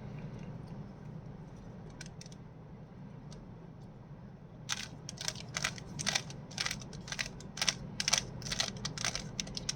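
Plastic Rubik's Cube layers being twisted by hand: a run of short clicks and rattles, about two a second, starting about halfway in, over a low steady hum.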